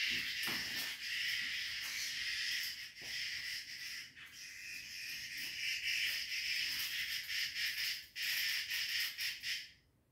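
Small insect caught by a cat, giving a loud, harsh buzz in short stuttering runs with brief breaks, cutting off abruptly near the end.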